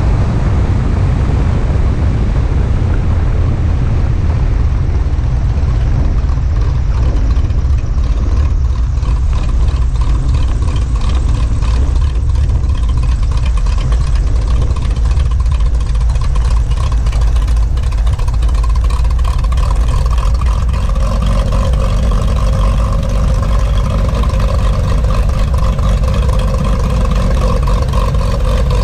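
Cessna 182B's six-cylinder Continental O-470 engine and propeller running at low power during the landing rollout and taxi, over a steady low rumble. A steadier engine tone stands out in the last third as the plane slows.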